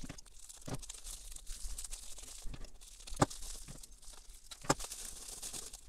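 Plastic bubble wrap crinkling and crackling as it is unwrapped from a pen by hand, with sharper snaps about three seconds in and again near five seconds.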